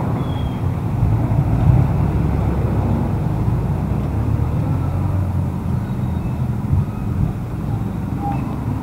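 Street traffic noise: a steady low rumble of cars and other vehicles moving on the road alongside.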